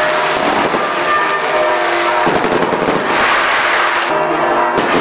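Aerial fireworks bursting and crackling, with a dense sizzling crackle about three seconds in, over music playing with held notes.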